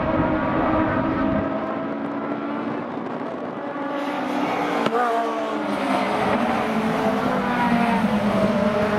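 Aussie Racing Cars, small race cars with 1.3-litre Yamaha four-cylinder engines, running hard as a group passes. The engine pitch rises and falls through the gears and corners, and the sound changes about four seconds in.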